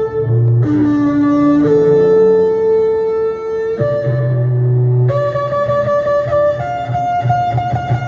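Instrumental music, guitar-led, with held notes that change pitch every second or two over a steady low bass note.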